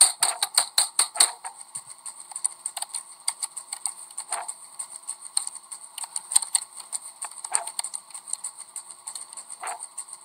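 Computer keyboard typing: a fast run of key clicks that stops about a second in, then scattered single clicks.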